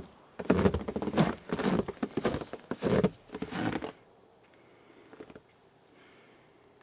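Footsteps crunching through snow, about two to three steps a second, stopping about four seconds in.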